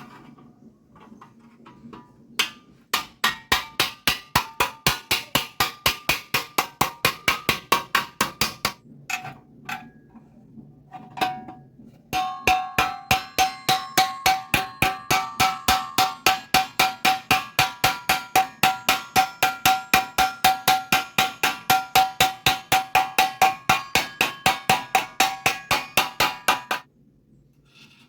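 Hammer blows on steel square tube, struck in a steady rhythm of about three to four a second with a ringing metallic tone. The blows pause briefly about a third of the way through, with a few single strikes, then resume in a longer run with a clearer ring that stops abruptly about a second before the end.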